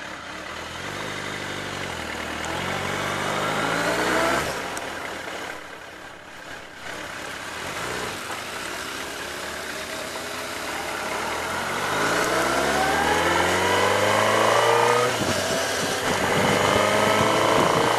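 Inline-four sport motorcycle engine accelerating, its pitch climbing and then dropping at a gear change about four seconds in. After a quieter stretch it climbs again for several seconds, drops at another shift near the end, and starts rising once more.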